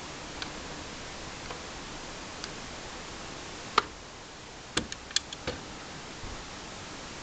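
Small metallic clicks from handling a Polaroid 195 Land Camera's lens and front standard over a steady hiss: a few faint ticks at first, one sharp click a little past halfway, then a quick cluster of clicks.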